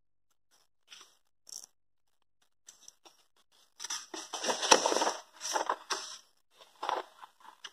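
A paper page of a notebook being turned: a few faint rustles, then a longer crinkling rustle of the sheet from about four to six seconds in, and a couple of short rustles near the end.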